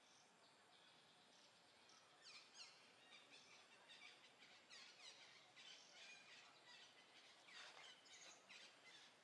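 Faint bird calls: quick, high chirps that sweep downward, repeated several times a second from about two seconds in, over a quiet forest background.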